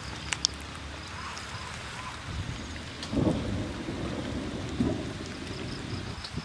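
Hands squeezing and mixing chopped green chilies and shallots in a clay dish, with brief wet squishing a few seconds in. Before that, a roasted chicken is pulled apart by hand. A steady low rumble sits under it all.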